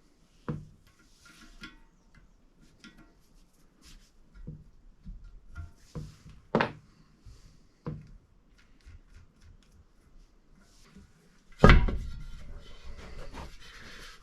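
Scattered knocks and clunks of objects being handled, with one much louder bang about three-quarters of the way through, followed by a busier stretch of clatter.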